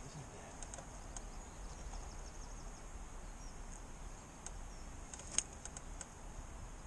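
Quiet outdoor background hiss with scattered light clicks and taps of fishing tackle being handled at the rig, one sharper click about five seconds in.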